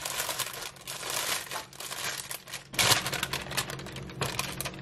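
Plastic sleeve of Ritz crackers being peeled open and handled: a continuous crinkling with a louder crackle about three seconds in.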